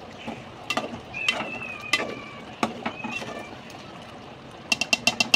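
Metal ladle stirring thick curry in a metal pot, knocking and scraping against the pot's sides with a ringing clink. A few separate knocks come first, then a quick run of about six taps near the end.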